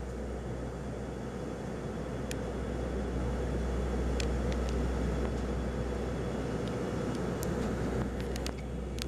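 Steady cabin drone of an ATR 72-200 turboprop in flight, heard from a passenger seat: a deep, constant hum from the engines and propellers under an even rush of airflow.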